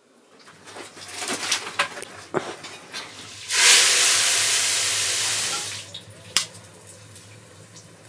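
Liquid poured into a hot pot of oil over a wood fire, bursting into a loud sizzling hiss for about two seconds before it drops back to a low sizzle. Light clicks of utensils on metal come before and after.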